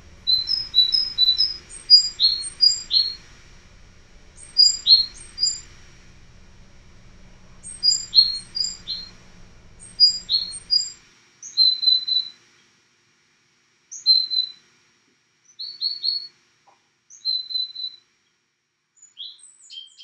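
A small songbird chirping: quick clusters of high, short chirps, several sliding downward in pitch, come every couple of seconds, then give way to sparser short bursts of calls in the second half. A faint low background hum cuts off about halfway through.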